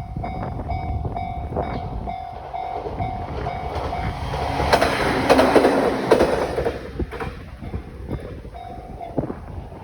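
Japanese railroad crossing warning bell ringing in a steady ding-ding rhythm while a JR Kyushu 815 series electric train passes, its wheels clacking over the rail joints. The train noise swells to its loudest about five to six seconds in, then dies away.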